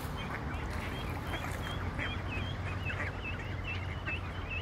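A flock of ducks calling while being fed: many short, quick high chirps mixed with brief quacks, over a steady low rumble.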